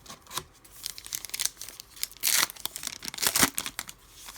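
Trading card pack wrapper being torn open and crinkled by hand, in a run of crackling rips, the loudest about two seconds in and again near three and a half seconds.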